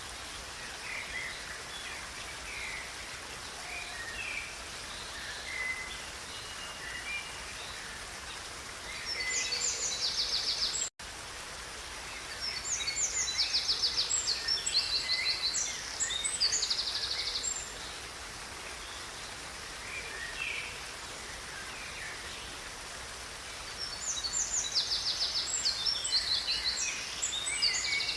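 Songbirds singing over the steady rush of river water, with three bursts of fast, high trilled song and scattered short calls in between. The sound cuts out for a split second about eleven seconds in.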